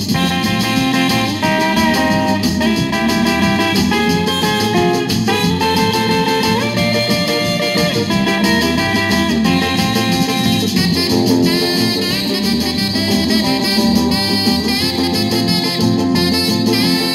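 Late-1950s instrumental rock and roll playing from a 45 RPM vinyl single on a turntable, with a saxophone lead and guitar over a steady beat.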